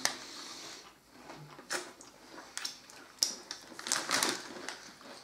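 Plastic snack wrapper crinkling in short, scattered crackles.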